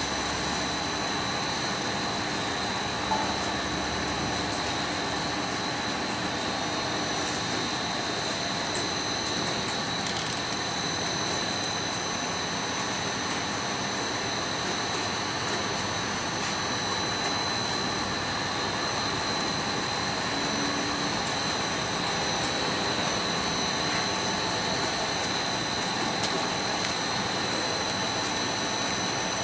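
FTPEG-1000 compound air-bubble film machine running: a steady mechanical hum and hiss with a constant high whine over it.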